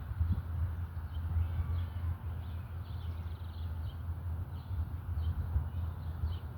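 Outdoor background of a steady low rumble with small birds chirping repeatedly in short high notes. No warning siren tone is sounding.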